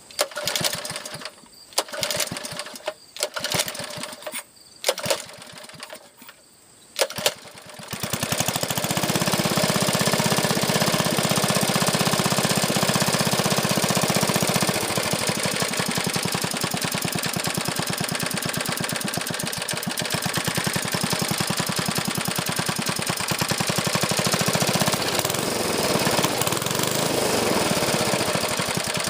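Small 1970s Clinton air-cooled engine: a few brief, sharp sounds over the first seven seconds, then about eight seconds in it starts and runs steadily with a fast, even beat.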